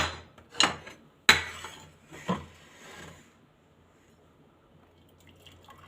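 Kitchenware being handled: four sharp knocks and clinks in the first two and a half seconds, then a short soft rubbing noise.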